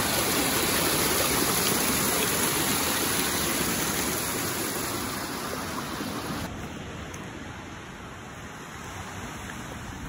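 Small waterfall pouring over rocks, a steady rush of water. About six and a half seconds in, it gives way abruptly to a quieter, steady wash of surf and shallow running water.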